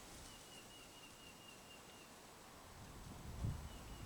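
Quiet outdoor ambience with a faint, high, rapidly repeated chirping trill from a small animal. The trill runs for about two seconds, stops, and returns briefly near the end, over a little low rumble.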